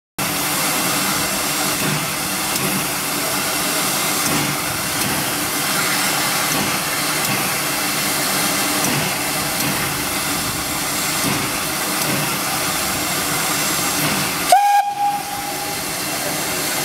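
J15 0-6-0 steam locomotive standing with steam hissing steadily. About 14.5 seconds in comes a sudden sharp sound, then a short whistle toot of about a second.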